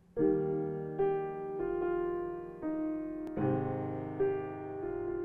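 Piano keyboard playing slow chords, each held for about a second before the next, beginning a moment in.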